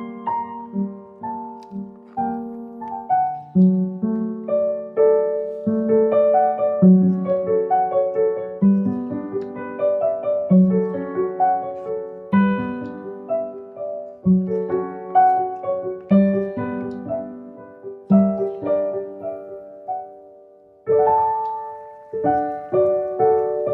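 Background piano music: a gentle melody over chords, each note struck and fading, with a short lull about twenty seconds in before the next phrase.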